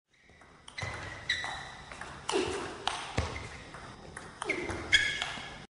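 Intro sound effect: a run of bright ringing pings, two of them trailed by a falling swoop, cutting off suddenly at the end.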